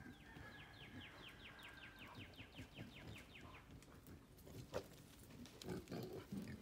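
A bird's fast trill of falling notes for about three seconds, then pigs grunting low a few times, with a sharp knock among the grunts.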